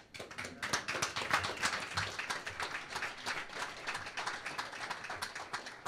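A congregation applauding: many people clapping at once, densely and unevenly.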